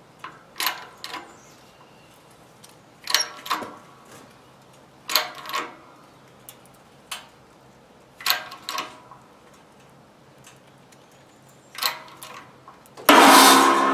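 Short groups of metallic clicks every two to three seconds as a 20-ton shop press is worked against a sealed front wheel hub bearing assembly. Near the end a loud metallic bang rings and fades as the pressed part breaks loose.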